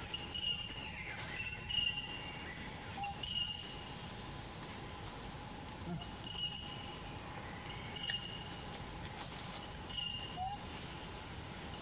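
Forest insects chirring steadily in a high, even drone that breaks off briefly now and then, with short high chirps dotted through it every second or few.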